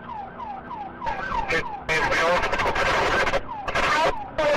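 Police siren on a fast yelp, its pitch falling in quick sweeps about three times a second, with a loud rushing noise over it for about a second and a half midway.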